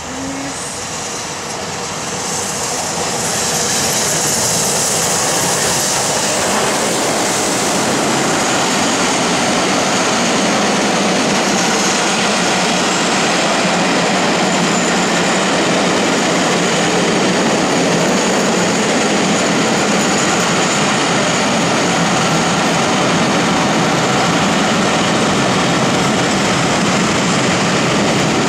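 A train passing at speed: a loud, steady rush of wheels and coaches that builds over the first few seconds, then holds.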